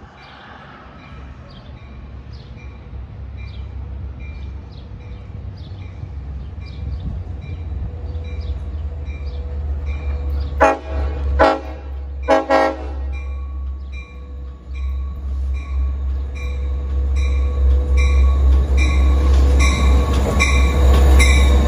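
LIRR DE30AC diesel-electric locomotive approaching and pulling in, its engine rumble growing steadily louder. About halfway through its horn sounds three times: two short blasts and one longer. A bell rings steadily about twice a second throughout.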